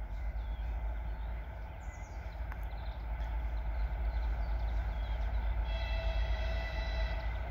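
2TE10MK diesel locomotive approaching from a distance with a steady low rumble. Most of the way through, its horn sounds one steady chord for nearly two seconds. Birds chirp briefly before it.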